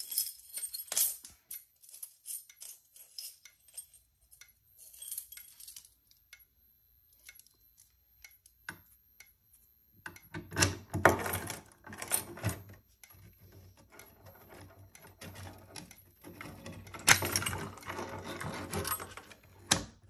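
Plastic and metal clicks and rattles of a Notifier NBG-12SP fire alarm pull station being handled by hand, in scattered taps with two busier stretches, about halfway through and near the end.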